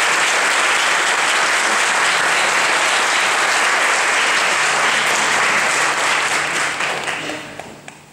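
Audience applauding loudly and steadily after a song, the clapping dying away near the end.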